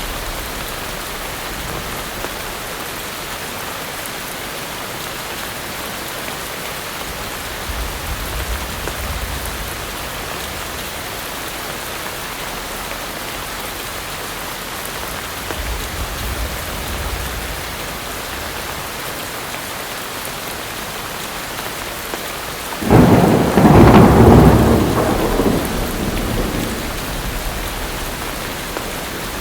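Steady heavy rain, with faint low rumbles of distant thunder twice. About three quarters of the way through, a sudden loud thunderclap breaks and rumbles away over a few seconds.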